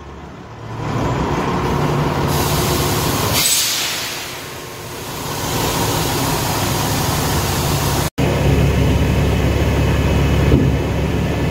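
Peterbilt 379 semi's diesel engine running as the truck and its dump trailer pull forward, with a short hiss of air from the air brakes about three seconds in.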